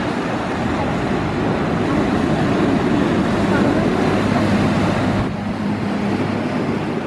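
Steady, loud outdoor engine and traffic noise, with a low hum that swells a few seconds in and drops away about five seconds in.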